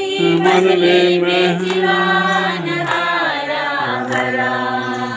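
A group of men and women singing a song together, unaccompanied, in long held notes; the line ends right at the close.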